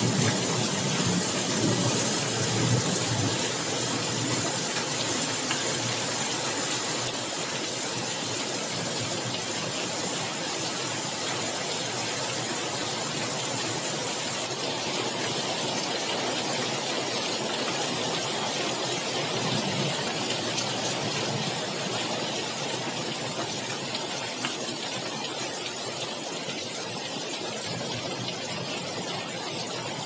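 Heavy rain pouring steadily in a windy storm, with a low rumble in the first few seconds that then eases off.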